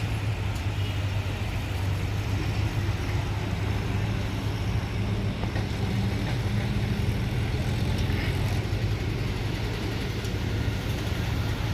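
Heavy vehicle's diesel engine running steadily with a low, even hum while hauling a large concrete bridge section across a construction site.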